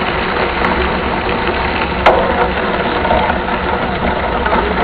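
Mountain bike being ridden over a rough trail, heard from a camera mounted on the bike: steady noise with scattered small clicks and a sharp knock about two seconds in.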